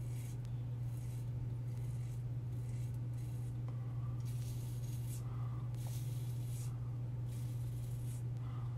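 Double-edge safety razor scraping through a few days' stubble under lather in short strokes, roughly one a second, over a steady low hum.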